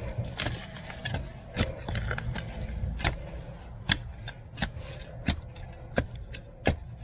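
Small spade chopping and scraping into soil and roots, with sharp strikes that settle into a steady beat of about one every 0.7 seconds in the second half.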